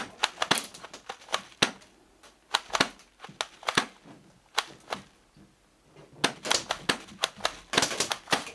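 Airsoft guns firing in a close-quarters room: sharp, irregular clicks and snaps in quick runs, with a short lull a little past halfway and the densest run near the end.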